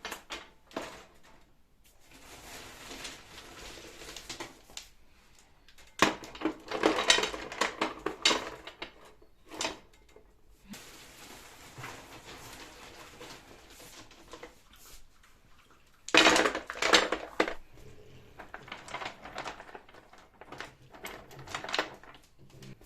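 Parts of a bio-fireplace kit clattering and knocking as they are handled and fitted, with two longer, louder bouts of rattling about six and sixteen seconds in.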